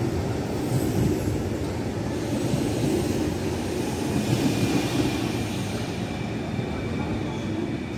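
Yellow-and-blue regional electric multiple unit alongside the platform, making a steady rumble, with a faint high-pitched whine entering in the second half.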